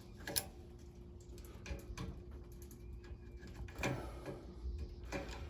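A few light clicks and rustles of wires being handled at a furnace control board, as a wire's connector is pushed onto a terminal, over a faint steady hum.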